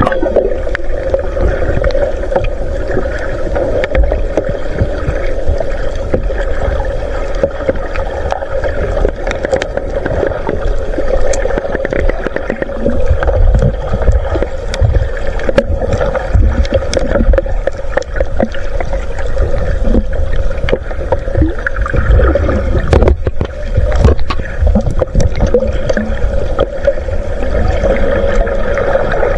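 Underwater sound picked up by a submerged action camera: muffled water movement and bubbling from a snorkeler diving, over a steady hum and low rumble.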